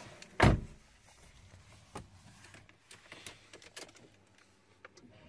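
A car door shutting with one heavy thump from inside the cabin, followed by faint clicks and rustles of people settling into their seats.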